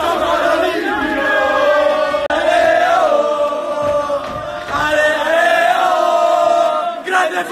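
A group of men loudly singing a chant together, the voices close to the phone's microphone, breaking into shouts near the end.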